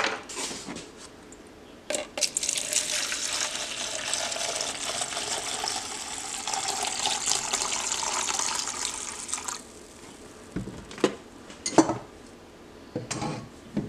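Kerosene poured from a plastic jug into a plastic mixing cup, a steady splashing pour of about seven seconds that stops abruptly. A few short knocks follow near the end.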